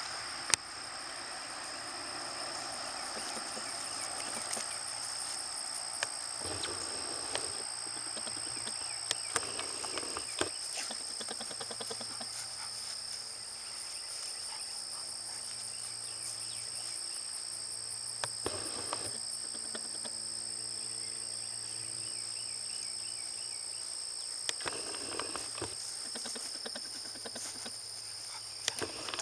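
Steady chorus of insects such as crickets, a continuous high-pitched trill in two pitches, with a few scattered light knocks.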